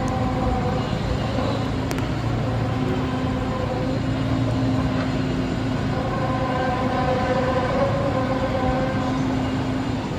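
A long, low droning hum of several held tones over a steady rumble, swelling in the middle and easing near the end: the metallic, horn-like kind of noise passed around as a 'strange sound in the sky'.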